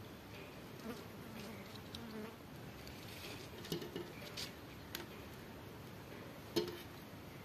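Clear slime loaded with glitter, sequins and beads being gathered, folded and pressed by hand on a plastic tray: scattered soft sticky crackles and clicks, the sharpest about six and a half seconds in, over a faint steady background hiss.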